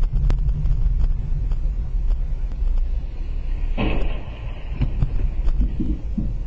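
Steady low rumble of a car driving, picked up by an in-car camera, with faint scattered ticks and a short rushing noise about four seconds in.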